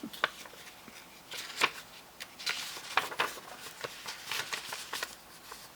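Paper rustling with a run of short, light clicks: the pages of a booklet being handled and turned.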